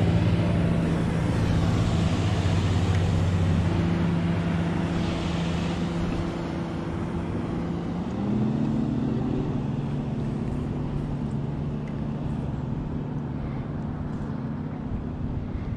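A passing engine drones steadily with a low hum. About eight seconds in its pitch drops a step, as it does when the engine goes past, and it then fades a little.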